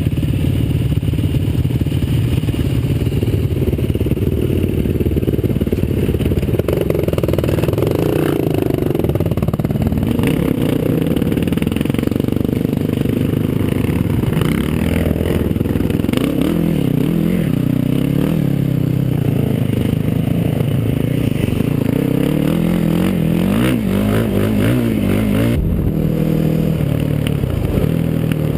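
Sport ATV engine running and revving on and off the throttle, its pitch rising and falling repeatedly, with some clatter.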